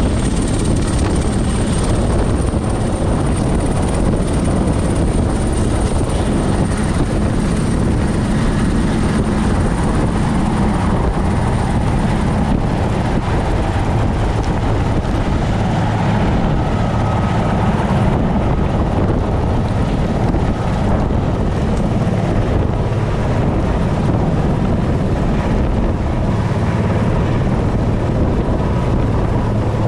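Helicopter hovering close overhead: a loud, steady rotor and engine roar with a thin high turbine whine.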